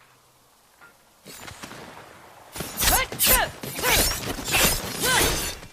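Steel katana blades clashing in a quick series of sharp, ringing strikes, with the ringing sliding in pitch as the blades scrape. The clashes start about two and a half seconds in, after a near-quiet opening.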